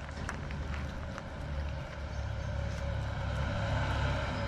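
Low rumble of a motor vehicle engine running, growing louder near the end, with a few soft clicks of a cat chewing wet food in the first second or so.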